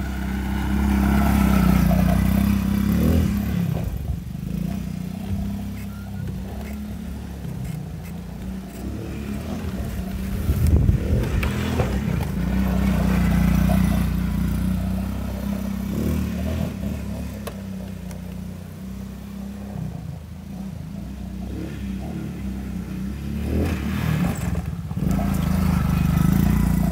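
Small youth ATV's engine running as it is ridden in circles on dirt. It grows louder each time it passes close: about two seconds in, around twelve seconds in, and loudest near the end. There is a brief rattle about eleven seconds in.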